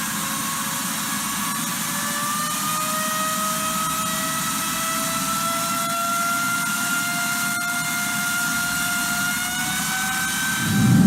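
Airliner turbofan engine running on the ground: a steady rushing roar with a fan whine that slowly rises in pitch as the engine spools up.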